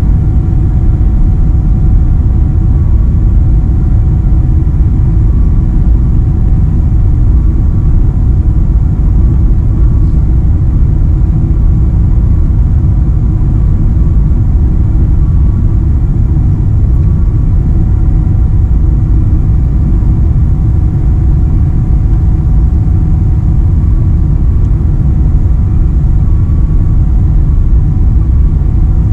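Steady low cabin rumble of a Boeing 777-300ER on final approach, heard from inside the cabin over the wing: the GE90-115B engines and airflow over the wing with its flaps extended. A few faint steady whining tones sit above the rumble.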